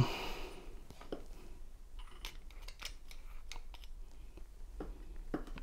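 Faint, irregular small clicks and taps of a motorcycle ignition lock's parts being handled and fitted by hand, the dust cover settling in the lock housing.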